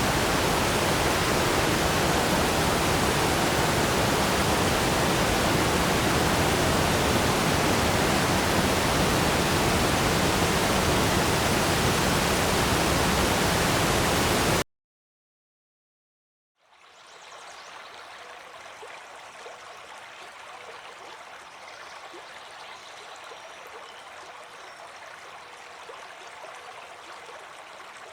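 Waterfall: a loud, steady rush of falling water that cuts off suddenly about halfway through. After about two seconds of silence, a much fainter rush of water fades in and holds steady.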